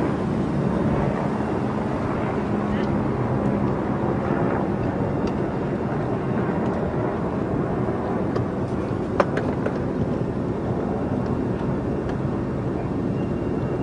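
Motorboat running steadily under way, its engine and water noise forming an even rush heard from aboard. A single sharp click comes about nine seconds in.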